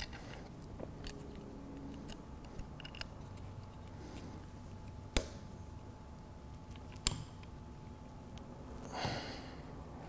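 Small ticks and handling sounds as a retaining clip is pressed onto a GM electronic throttle body to hold a new throttle position sensor in place; two sharp clicks stand out, about five and seven seconds in.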